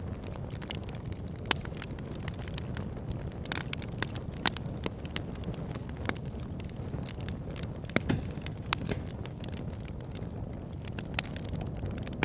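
Log fire burning in a fireplace: a steady low rumble of flames with frequent sharp crackles and pops from the burning wood, a few of them louder snaps.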